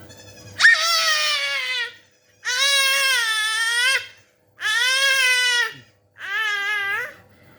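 A small child bleating like a sheep: four drawn-out, wavering 'baa' calls, each about a second long with short pauses between them, the first starting with a sharp, loud onset.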